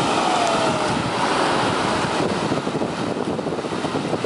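Ocean surf washing onto the shore, with wind buffeting the microphone.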